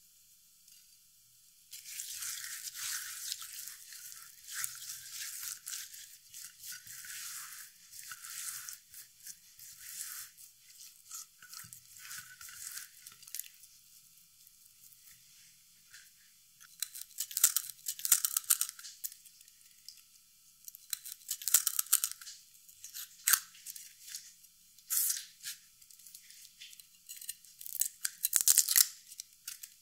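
Hands rubbing a dry spice rub into raw goose skin, a continuous soft scratchy rubbing. From about halfway on, garlic cloves are being peeled, their papery skins crackling and tearing in sharp, separate bursts that are louder than the rubbing.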